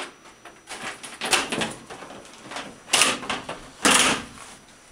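Large plastic TV back cover being lifted off the set, scraping and rattling as it comes free. There are a few noisy bursts, the loudest two near the end.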